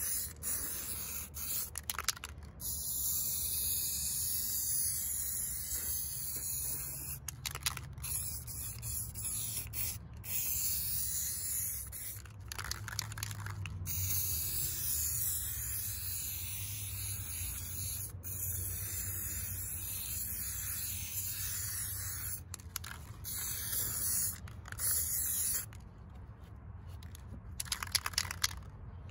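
Aerosol spray can hissing as it sprays a wooden board, a long steady hiss with a few short breaks.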